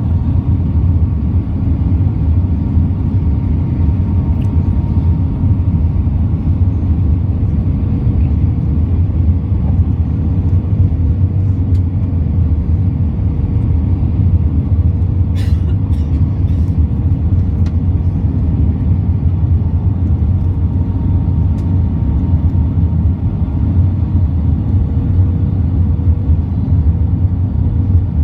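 Airliner's steady low rumble with faint steady hums through it, and a brief click about fifteen seconds in.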